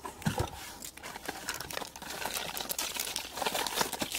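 Crinkling and rustling of plastic toy packaging being handled, with many small clicks of light plastic pieces and a soft knock just after the start.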